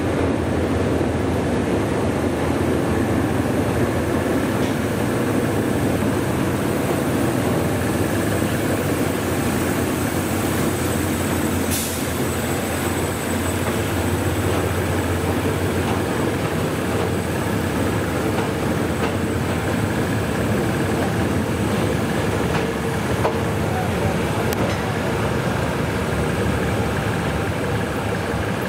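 1963 GE 1,300 hp diesel-electric locomotive running steadily as it hauls a rake of coaches slowly past while shunting, its engine drone mixed with wheel and coach noise. A single sharp click is heard about twelve seconds in.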